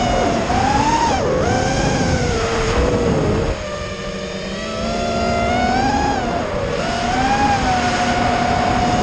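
FPV racing quadcopter's brushless motors and propellers whining, the pitch rising and falling with throttle, over wind rumble on the onboard camera's microphone. The whine drops and goes quieter for about a second around four seconds in, then climbs back.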